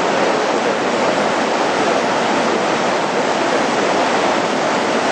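River rapids: whitewater rushing steadily and loudly, an even, unbroken churn of water.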